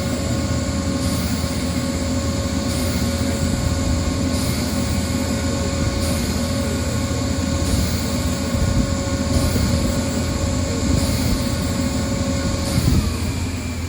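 Heavy machine engine running steadily with a low rumble and a steady whine. Near the end the whine dips and drops away.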